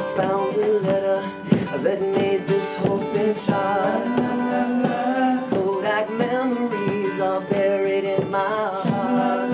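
A rock band playing a song live, with strummed acoustic guitar and a melodic lead line over it.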